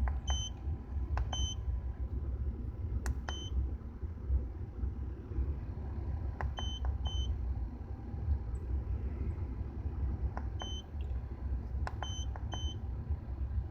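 Short electronic beeps from a handheld OBD code scanner, single and in quick pairs, about nine times, with a few sharp clicks. Underneath is the low, steady rumble of an Acura Integra's B18B1 four-cylinder engine running.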